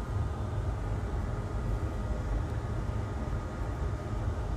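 Steady low hum with a faint even hiss and no distinct knocks or clicks: background room noise.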